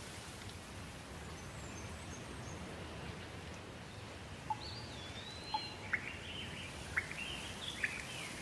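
Steady rain with birds chirping; from about halfway through, several short sharp calls and quick sweeping whistles come in over the rain.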